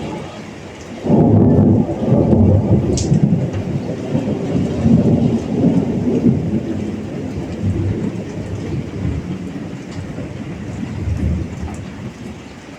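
A thunderclap breaks about a second in, then the thunder rolls and rumbles for several seconds, swelling twice more before slowly dying away. Steady heavy rain falls throughout.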